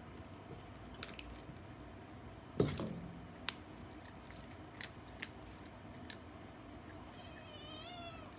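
Scattered sharp clicks and crunches of a kitten chewing dry kibble from a steel bowl, with a dull thump about two and a half seconds in as kittens wrestle beside it. Near the end comes a short, wavering high-pitched kitten mew.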